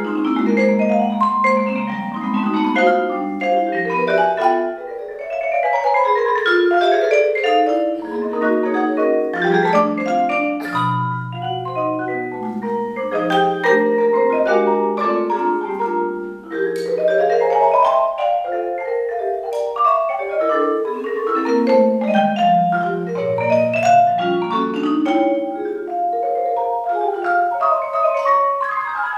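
Marimba and vibraphone playing a duet: waves of quick mallet runs and arpeggios that sweep up and down, notes ringing into one another. Deep marimba notes sound beneath the runs about eleven seconds in and again near twenty-three seconds.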